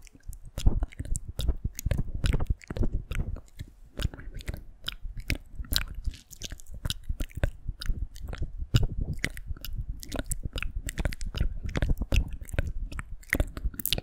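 ASMR mouth sounds close to the microphone: a rapid, uneven run of mouth clicks and smacks, several a second.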